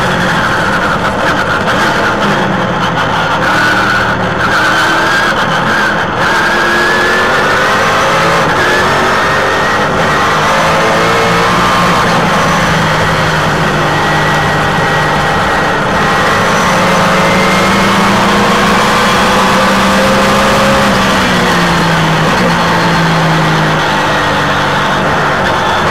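Trans Am Series race car's engine at racing speed, heard from its onboard camera, loud and continuous, its pitch climbing and falling as the driver accelerates and brakes through the corners.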